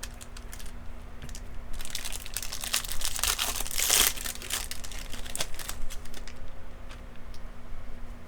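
Crinkly foil wrapper of a Topps baseball card pack being handled and torn open. It is a dense crackling rustle, from about two seconds in to past the middle, loudest around four seconds, then a few scattered small crinkles.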